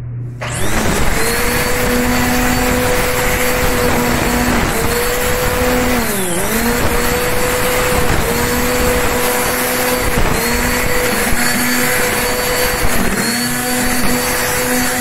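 Black & Decker GrassHog 800 W electric corded string trimmer starting up about half a second in and running with a steady motor whine over the hiss of the spinning line. The pitch dips briefly twice, about six seconds in and again near the end.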